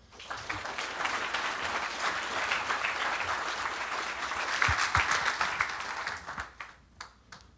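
Audience applauding a conference talk: clapping swells in quickly, runs for about six seconds and dies away, with a few last scattered claps near the end.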